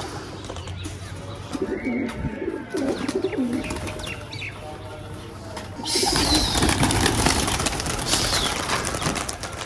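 Domestic pigeons cooing, low throaty calls repeated over a few seconds. About six seconds in, a sudden loud rushing noise starts and runs on.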